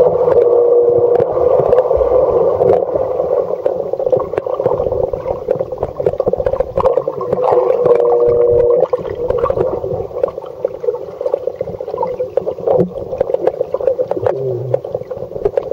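Muffled underwater noise picked up by a camera held under the water: dull churning of the water with scattered clicks, and a muffled humming tone near the start and again about eight seconds in.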